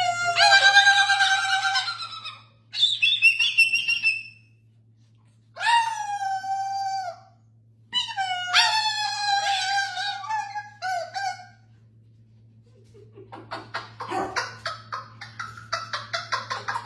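An animal making four long, high-pitched calls, each lasting one to three seconds, some sliding in pitch. Near the end comes a rapid run of short, quick sounds.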